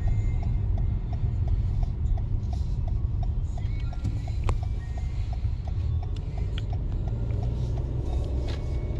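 Steady low rumble of a car's engine and road noise heard inside the cabin, with a turn-signal indicator ticking evenly about two to three times a second.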